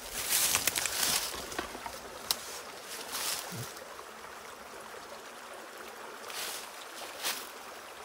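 Footsteps crunching through deep dry leaf litter in a few irregular steps, loudest in the first second, over the steady rush of a creek.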